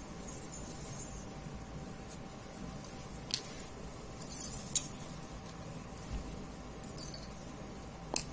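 A few short, light clicks and taps of a plastic ruler and pen being handled against a paper chart as a ray is drawn, over a faint steady hum.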